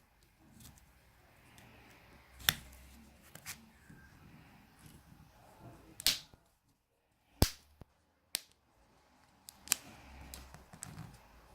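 Plastic latches of a Samsung Galaxy S4's housing snapping loose as it is pried open: a handful of sharp, separate clicks, a second or more apart.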